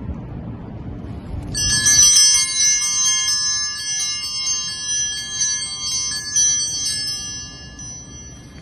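A bell rung over and over in quick strokes. It starts abruptly about a second and a half in and dies away near the end, after a low rumble at the start.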